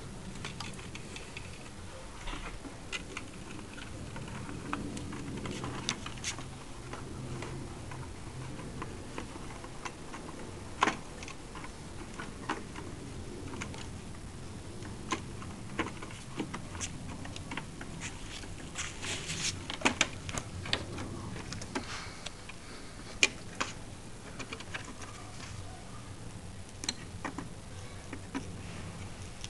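Irregular light clicks and taps of a small hand tool and fittings being handled on a scale model aircraft's dummy engine and gun mounts, with a denser run of clicks about two-thirds of the way through.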